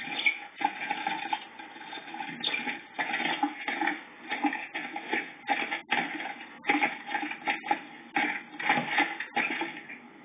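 A tree sparrow and a blue tit fighting inside a wooden nest box: wings flapping and feet scrabbling against the wood in irregular bursts of scuffling, with sharp knocks scattered through.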